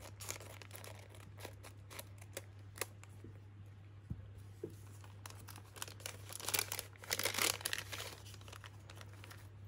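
Scissors snipping along the top edge of a small paper packet, a scattering of short crisp cuts in the first few seconds. Then the paper rustles and crinkles as the packet is handled and opened, busiest from about five to eight and a half seconds in.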